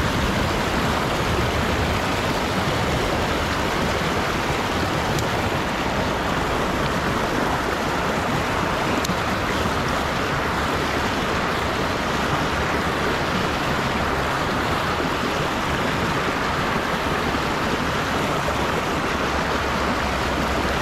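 Steady rushing wind noise on the microphone, with a rumble underneath and a couple of faint ticks.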